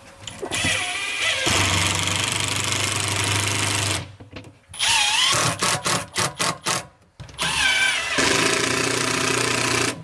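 Cordless impact driver driving #8 × 1¼ in screws into a cabinet panel. A long run of hammering, then a string of short trigger bursts with rising motor whines, then another long run near the end.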